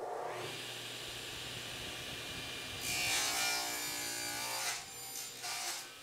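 Table saw running with its blade spinning steadily. About three seconds in it cuts across the end of a board pushed through on a cross-cut sled, louder and harsher for a couple of seconds. A shorter flare comes near the end before the saw runs on free.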